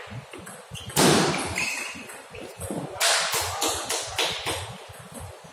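Table tennis hall sounds around the end of a rally: light, sharp ball clicks and taps, with two sudden loud bursts about one and three seconds in that fade away.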